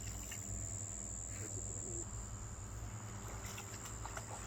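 Steady high-pitched insect buzz over a low steady hum, with a few faint bird chirps.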